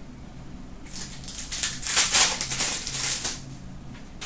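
Foil wrapper of a trading-card pack crinkling and tearing as it is ripped open by hand. The rustling starts about a second in, is loudest near the middle and dies away before the end, over a faint electrical hum.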